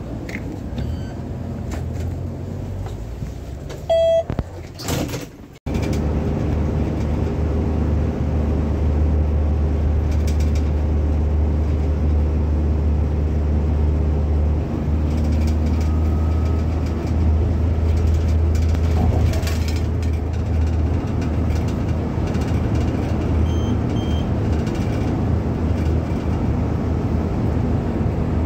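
Steady low engine drone and road noise inside the cabin of a minibus cruising over a highway bridge. During the first few seconds, while boarding, there is a short electronic beep. After a sudden cut the drone runs on evenly.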